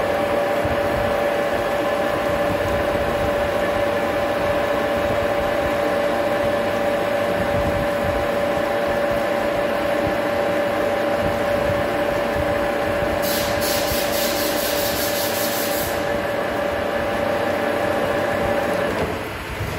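Metal lathe cutting a thread along a long steel rod under flood coolant: a steady machine whine over the hiss and splash of coolant and the cut. A rapid high ticking runs for a few seconds about two-thirds in, and the whine stops just before the end.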